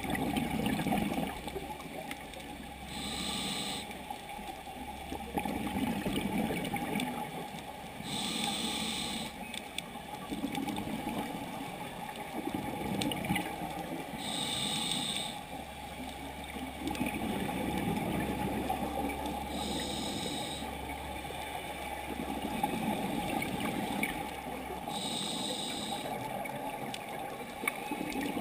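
Scuba diver breathing through a regulator underwater: five breaths about every five and a half seconds, each with a short hiss and bubbling, over a steady low rumble.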